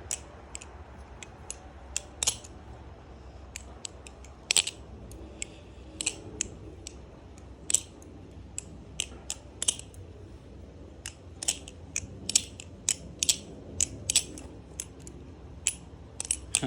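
The One Falcon balisong being flipped by hand: irregular sharp metallic clicks and clacks as the handles and blade swing around the pivots and knock together. The loudest clacks come about two and four and a half seconds in.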